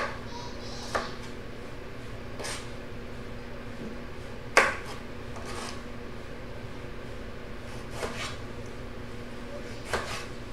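Kitchen knife knocking on a cutting board while dicing tomatoes: scattered single knocks a second or more apart, the loudest about four and a half seconds in, over a steady low hum.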